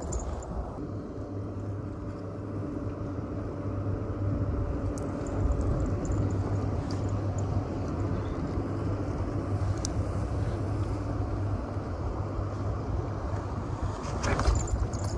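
An engine running steadily with a low hum, fading near the end, over a low wind rumble. A brief rattle just before the end.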